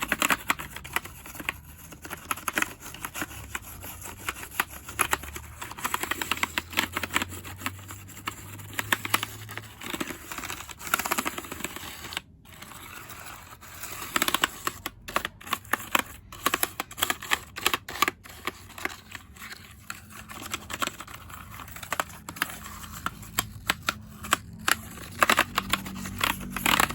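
Toothbrush bristles scrubbing across a computer keyboard, the keys rattling and clicking rapidly and irregularly under the brush, with a short lull about twelve seconds in.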